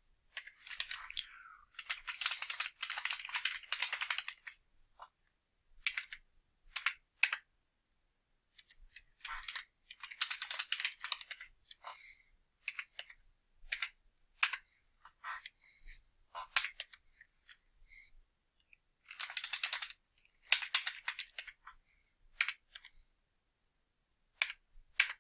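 Computer keyboard typing: a few runs of rapid keystrokes, each a second or more long, with single key taps and short pauses in between.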